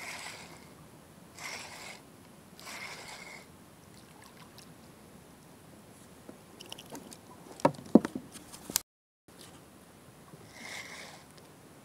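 Spinning reel being wound in short whirring bursts. Between about six and a half and eight and a half seconds in there is a cluster of sharp knocks and taps, the loudest sounds here, as a small caught fish is handled against the boat.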